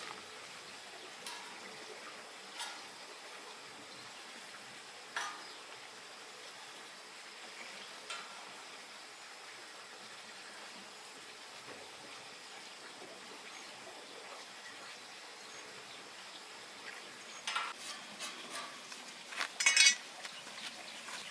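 Faint steady hiss with a few scattered light clicks, then a quick run of sharper clinks and knocks near the end.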